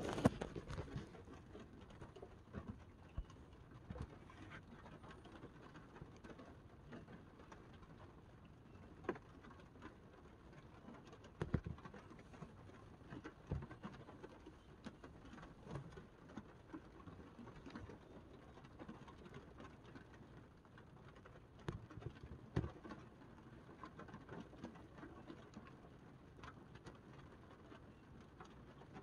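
Rain pattering on the pickup's cab and rear window glass, heard from inside the cab, with scattered irregular taps and knocks.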